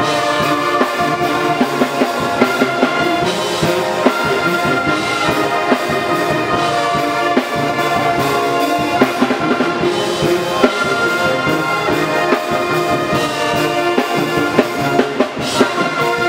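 HBCU pep band's brass section (sousaphones, trumpets, baritones and saxophones) playing a loud, full-band tune, with drum strokes driving it.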